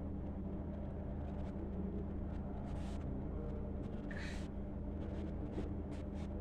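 Steady low electrical-sounding hum of the room background, with faint pen-on-paper scratches in the first second or so and two short soft hisses about three and four seconds in.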